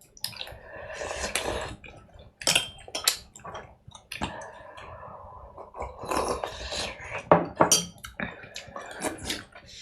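Dishes and utensils clinking and knocking at irregular intervals, with some splashy noise between the clinks.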